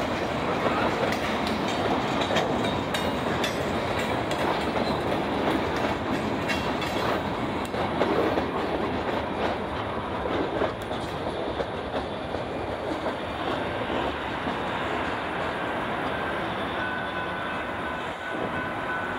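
Boxcars of a Valdosta Railway freight train rolling past a grade crossing, wheels clicking over the rail joints. The sound eases a little after the last car passes, about ten seconds in, and a steady high tone comes in near the end.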